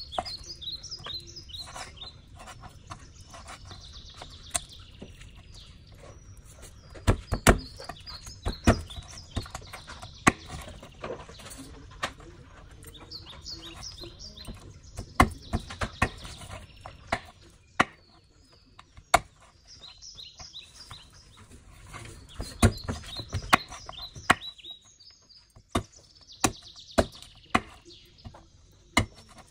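Hand-forged 5160 spring-steel chef knife cutting and chopping raw rib meat and bone on a wooden cutting board: scattered sharp knocks, some in quick runs of three or four. Birds chirp in short repeated phrases in the background.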